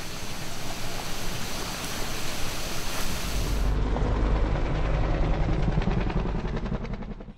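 A steady rushing noise, then from about halfway the low rumble and rhythmic rotor beat of a firefighting helicopter flying with a water bucket slung beneath it. The sound cuts off abruptly at the end.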